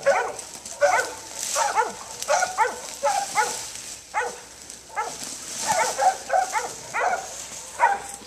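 Mountain Cur hunting dogs barking steadily on a wild boar, in uneven runs of short barks at roughly two a second.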